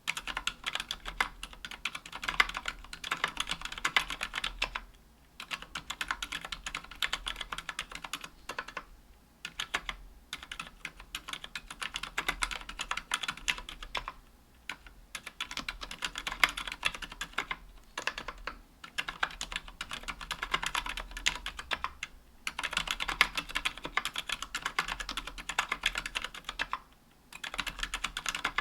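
Continuous typing on a KBDfans Tofu 60% aluminium keyboard with Healios silent linear switches (67 g) and GMK keycaps: fast runs of soft keystroke clicks, broken by short pauses every few seconds.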